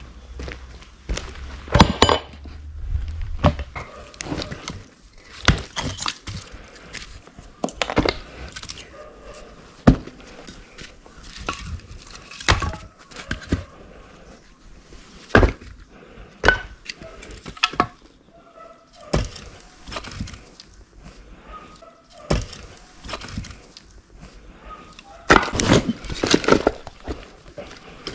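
Irregular knocks, clicks and clinks of hard objects being handled and set down, with a denser run of clatter near the end.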